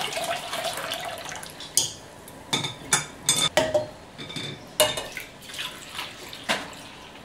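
Hibiscus drink being poured from a glass jug through a steel mesh sieve into a glass bowl, splashing, then a series of sharp clinks of glass and metal as the jug is dipped back into the steel pot to scoop more.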